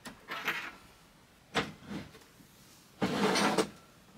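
Cables handled through the desk's cable hole, with a few short clicks and knocks. About three seconds in comes a sliding scrape, like a drawer, as the PC unit built into the underside of the desk is pulled out.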